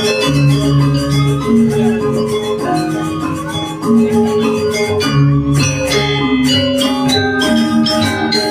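Balinese gong gamelan playing: dense, rapid strikes of metallophones over held lower gong tones that change every half second or so.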